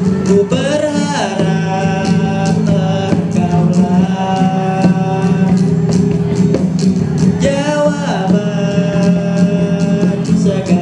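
Acoustic guitar and a hand-played cajón keep a steady beat under a boy singing into a microphone. He sings in phrases of a few seconds with short breaks between them.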